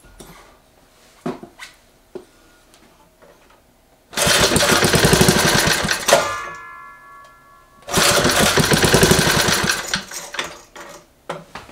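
Small Briggs & Stratton edger engine running on propane fed through a hose with no carburetor. It is pull-started and catches for about two seconds, dies, and then does the same again on the next pull. The air-fuel mix from a small air hole in the feed tube is still not right for it to keep running.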